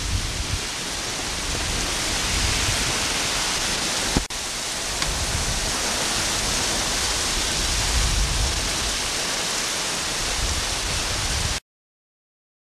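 Heavy rain falling steadily, a dense hiss with low rumbles underneath at the start and again about eight seconds in. A brief click and dropout come about four seconds in, and the sound cuts off suddenly near the end.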